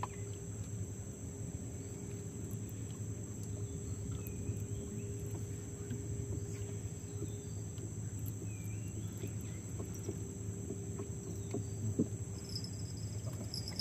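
Steady high-pitched insect drone from the surrounding mangroves, over a low steady hum, with a few faint short chirps and a single sharp tap near the end.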